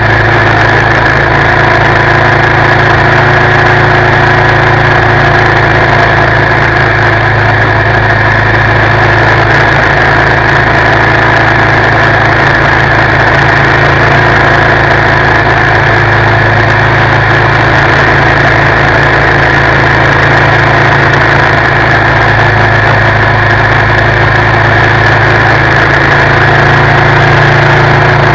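2019 Suzuki V-Strom 650's V-twin engine running at a steady cruise, heard up close from the front crash bar, with no revving up or down.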